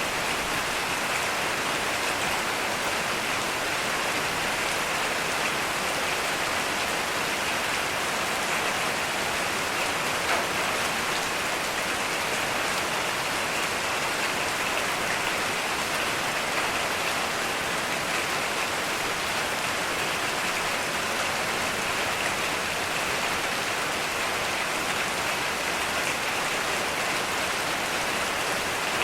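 Heavy rain falling steadily, a dense even hiss of rain on surfaces with no thunder.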